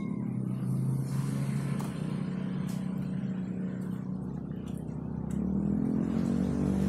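A motor vehicle's engine runs steadily off-screen, getting louder about five seconds in as it draws nearer.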